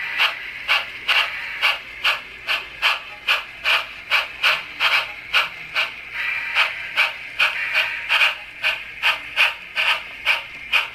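Sound decoder in an Sn3 brass model steam locomotive playing steady exhaust chuffs from its small speaker, about two and a half a second, the locomotive running slowly. A steadier steam hiss runs under the chuffs from about six seconds in for a couple of seconds.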